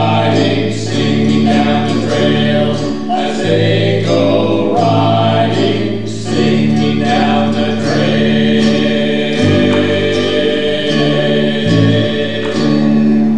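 Men's voices singing in harmony, accompanied by a strummed acoustic guitar and ukulele, with the voices holding long notes at times.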